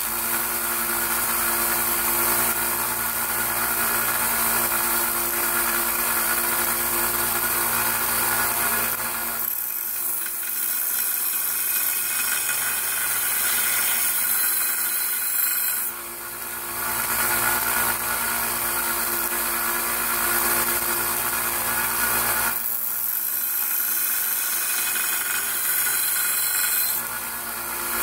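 Harbor Freight 1x30 belt sander running steadily while a hatchet's dull edge is ground on the belt. The sound changes for two stretches of several seconds as the blade is worked against the belt.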